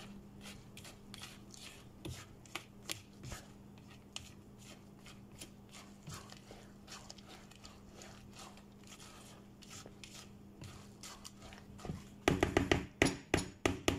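Silicone spatula stirring thick, wet oatmeal batter in a plastic mixing bowl: soft, irregular scrapes and squelches over a steady low hum. Near the end the strokes come louder and quicker.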